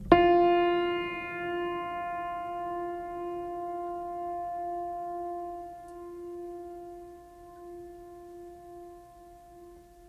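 Background music: a single struck, piano-like note with bright overtones rings out at the start and slowly fades away.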